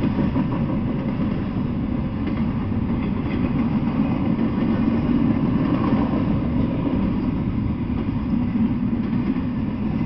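Double-stack intermodal freight train rolling past on well cars, a steady, unbroken sound of steel wheels on the rails with most of its weight low in pitch.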